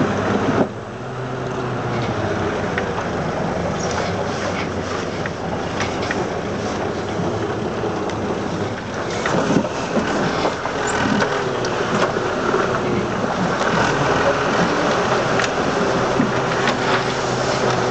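Land Rover Series 2a short-wheelbase four-cylinder petrol engine running steadily as the vehicle drives slowly over a muddy off-road track, with scattered knocks and rattles.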